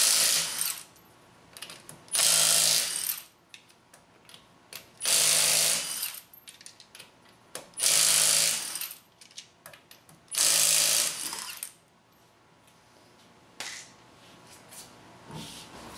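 Milwaukee cordless impact wrench hammering in five bursts of about a second each, a couple of seconds apart, breaking loose a wheel's lug nuts one after another.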